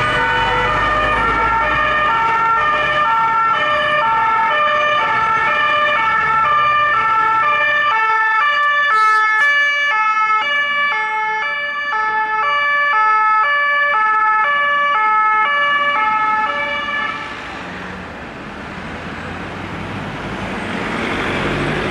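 French two-tone emergency sirens sounding their alternating high and low notes. About eight seconds in, a second two-tone siren joins, out of step with the first. Both stop about seventeen seconds in, leaving road traffic and a passing engine.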